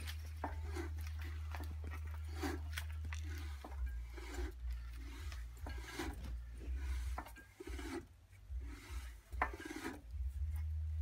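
Single-cylinder Imperial Super Diesel hit-and-miss engine being turned over slowly by hand at the flywheel, giving a rasping rub repeated about every two-thirds of a second with small clicks, over a steady low hum. The engine is a bit bound up, likely from surface rust in the cylinder bore.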